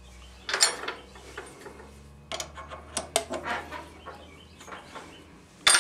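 Irregular metallic clicks, clinks and scrapes of hands working at a milling machine's drill chuck and the steel workpiece, ending in one sharp click.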